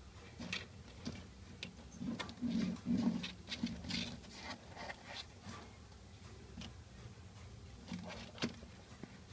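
A small wooden toy truck being handled on a tabletop: light wooden clicks, taps and soft knocks as it is turned and set down, busiest a couple of seconds in and sparser afterwards.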